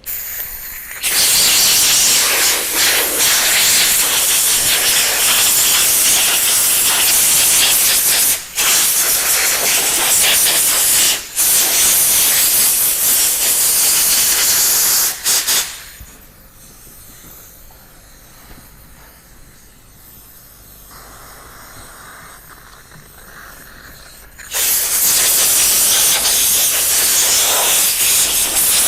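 Compressed-air blow gun hissing in long, loud blasts, with two short breaks. It stops for about eight seconds past the middle, then starts again.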